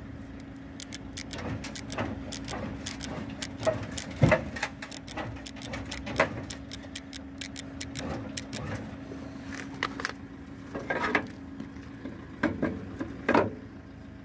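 Flatbed tow truck's winch running with a steady hum as it drags a car with collapsed hydraulic rear suspension up the ramp, the wheel riding over wooden blocks. Scattered knocks and creaks go with it, the loudest a sharp knock about four seconds in.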